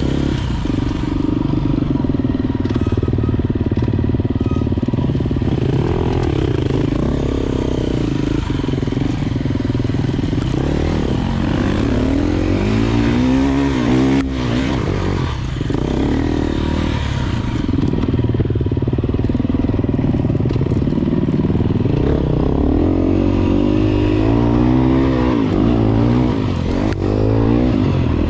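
Enduro dirt bike engine being ridden, its revs rising and falling again and again as the throttle is worked, with the quickest swings about halfway through and again near the end.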